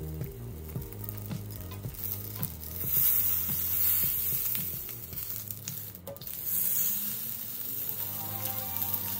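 Salmon head sizzling on a hot cast-iron grill pan. The sizzle swells about three seconds in and again near seven seconds as the fish is lifted and flipped with tongs onto its meat side.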